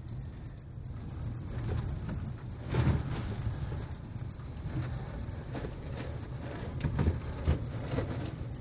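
Heard from inside the cabin, a car drives a rutted, muddy, half-thawed road: a steady rumble of engine and tyres, with mud and slush splashing against the windshield and body. Sharp knocks from underneath, as if hitting rocks, come once about three seconds in and twice near the end.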